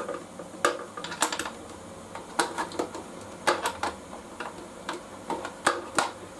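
Irregular sharp clicks and clinks of hand tools and parts being worked, in small clusters, while a 10 mm nut holding a motorcycle turn signal is being got at.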